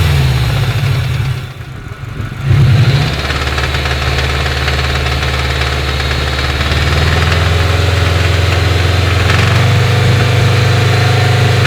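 Subaru EJ20G turbocharged flat-four engine being revved: the throttle drops off about a second in, it is blipped again near two and a half seconds, then it runs steadily. Throughout, a connecting rod knocks, heard on the throttle release and under revs: the sign of a smashed big-end bearing on one of the rods.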